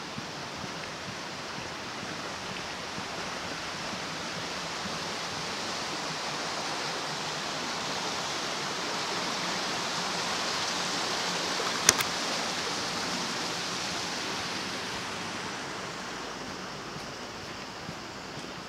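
Rushing water of a flooded, fast-running creek, a steady noise that grows louder toward the middle and then fades again. A single sharp click about two-thirds of the way through.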